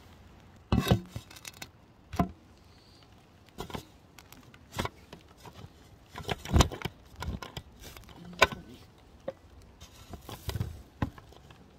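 Rain hitting the phone: about nine irregular, sharp taps close to its microphone, a second or so apart, over a soft background.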